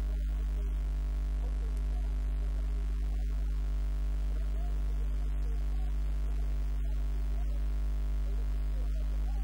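Loud, steady electrical mains hum, a low buzz that does not change, with faint wavering sounds underneath.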